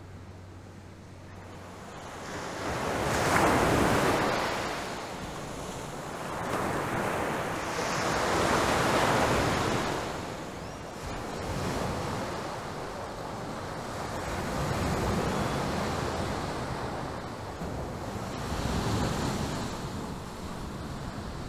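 Sea waves breaking on a sandy beach. The surf surges and washes back in about five swells a few seconds apart, with wind on top.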